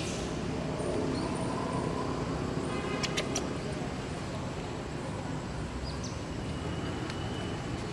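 Steady outdoor background rumble, like distant road traffic, with a couple of sharp clicks about three seconds in.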